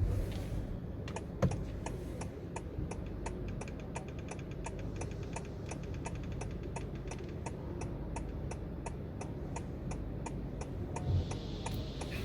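Steering column of a 5th-generation Honda City crackling as the wheel is turned with the indicator on: a rapid, even train of sharp clicks, about four to five a second, with one louder click early on, over the low hum of the car. The owner's dealer called this noise normal.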